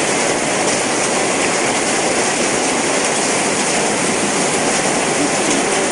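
Heavy rain pouring down: a steady, even rush of water with no letup.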